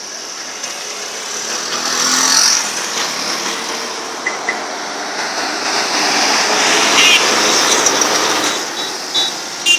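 Road traffic passing close by: engines and tyres of motorbikes and a bus, growing louder around two seconds in and again over a stretch about six to eight seconds in as vehicles go past.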